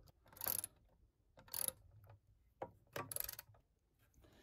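Hand driver with a socket turning a lag screw into a wooden post, in three short clicking, rasping strokes about a second apart.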